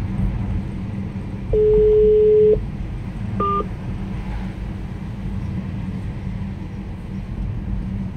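Telephone ringback tone on an outgoing call: a single steady one-second beep, the line ringing at the far end while waiting for an answer. A short higher beep follows about two seconds later. Steady car road noise runs underneath.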